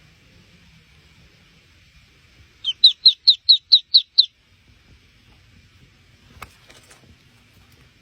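A bird calling: a quick run of about eight sharp, high chirps, about five a second, starting a couple of seconds in, then a single click a little later.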